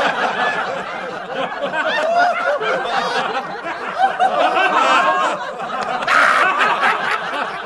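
Canned audience laughter: many people laughing together at once, which cuts off suddenly at the end.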